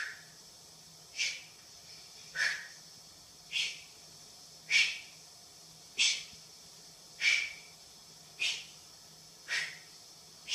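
A woman breathing out sharply through her mouth in short, hissing puffs, about one every 1.2 seconds and nine in all, each puff on the effort of a lower-abdominal crunch.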